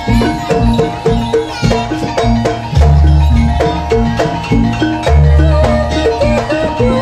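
Javanese gamelan music for a jaranan dance: metallophones and gongs play a busy repeating pattern, with deep booms about every two seconds. A wavering melody line comes in about five seconds in.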